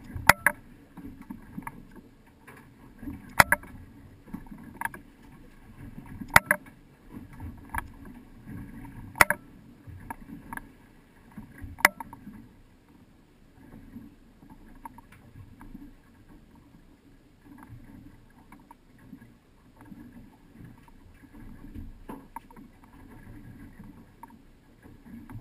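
Sportfishing boat rocking on a choppy sea: a steady low rumble of wind and water. Sharp knocks come about every three seconds for the first twelve seconds, then fainter, scattered clicks.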